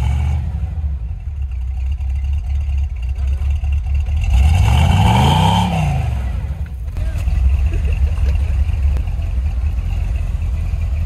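Square-body Chevy K5 Blazer's engine revving while its tyres spin and churn through deep snow, the truck dug in and stuck. About halfway through, the revs climb and fall once, with a burst of tyre-and-snow noise.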